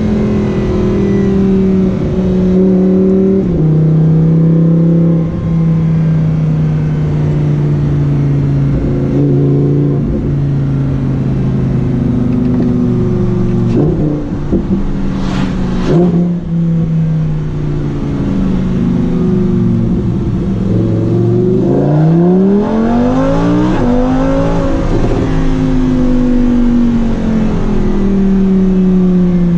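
Lamborghini Huracán Performante's V10 engine running loud, its note holding steady and stepping between pitches, then revving up sharply about three-quarters of the way through and falling back.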